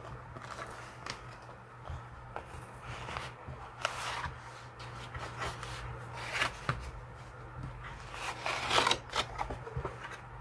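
Paper and leather rustling as a leather traveler's notebook is opened and its pages are pressed flat by hand: irregular swishes and scrapes, the loudest near the end, over a low steady hum.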